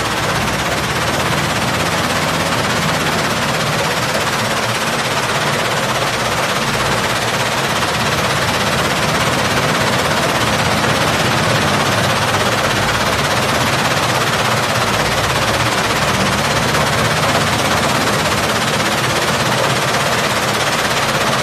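Gold wash plant with a vibrating sluice running: a loud, steady, dense rattling of shaking steel and gravel, with slurry flowing.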